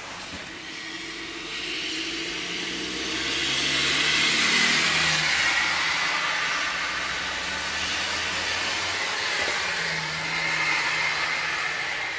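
Road traffic passing on a snowy, slushy street: tyre noise and engine sound swell as a vehicle goes by about four to five seconds in, its engine note falling in pitch, then a second vehicle comes through near the end.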